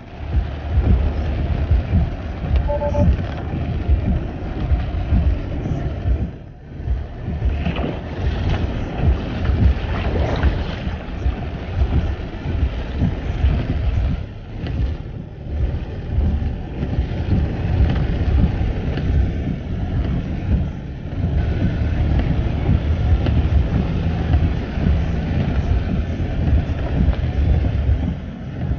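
Water churning and rumbling against a Tesla's tyres and body as it drives through deep floodwater, a dense low noise that rises and falls without a break. A short dashboard alert chime sounds about three seconds in.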